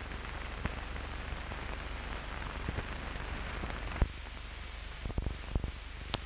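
Surface noise of an old optical film soundtrack running over blank leader: a steady hiss with a low hum, broken by scattered clicks and pops, more of them in the last couple of seconds.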